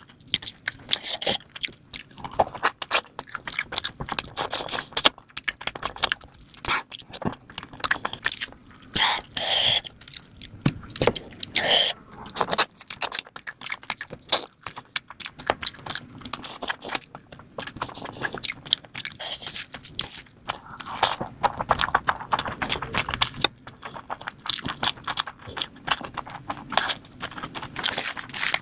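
Close-up eating sounds from a person eating mutton nalli (lamb shanks) with rice by hand: wet squishing as fingers mix rice into the gravy, chewing, and biting meat off the bone, made of many short sharp clicks and smacks.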